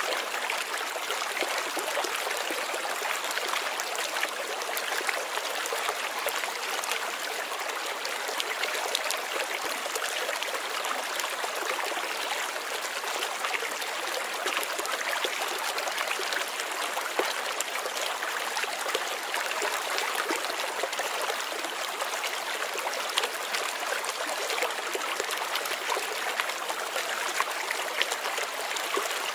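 Water flowing steadily over rocks, a continuous splashing and trickling stream.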